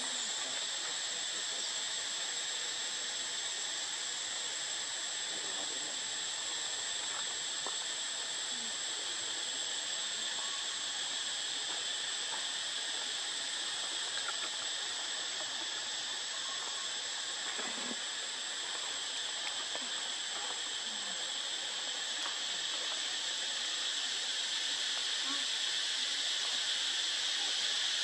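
Steady high-pitched hiss with a constant thin whine above it, the sound of an outdoor insect chorus, growing slightly louder near the end.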